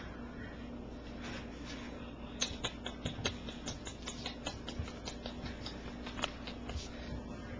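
Small irregular clicks and scratches, several a second from a couple of seconds in, from young cockapoo puppies' claws scrabbling as they move about, over a steady faint hum.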